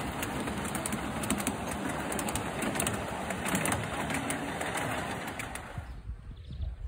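Miniature railway train with passenger cars rolling past close by, with steady running noise and irregular rattles and clicks from the wheels on the track. The sound drops away sharply about six seconds in.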